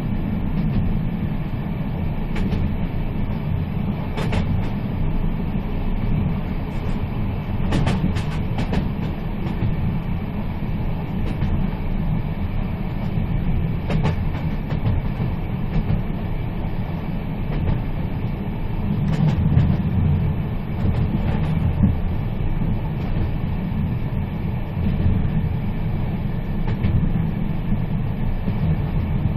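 A moving train running steadily, a continuous low rumble with scattered clicks and knocks from the wheels and track.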